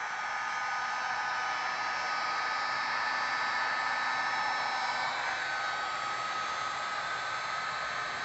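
Electric heat gun running, blowing hot air onto heat-shrink tubing on a heavy battery cable: a steady rushing hiss with a faint steady whine.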